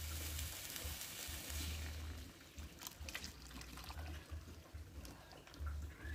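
Coconut milk poured from a jug into a wok of fried spice paste: a soft splashing pour, fuller in the first couple of seconds. There are a few light clicks about three seconds in and a faint low rumble on and off.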